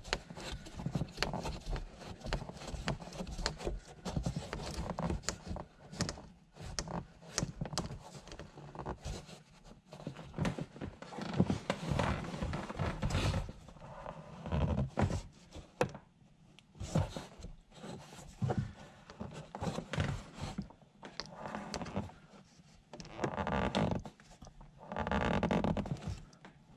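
Handling noise from hand-tightening a mounting knob on an acrylic wind deflector panel, with a gloved hand: irregular rubbing and scraping with light knocks and clicks.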